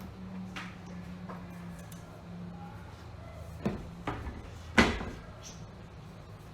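A few sharp knocks and clatters of handling in the workshop, the loudest about five seconds in, over a low steady hum; the saw is not running.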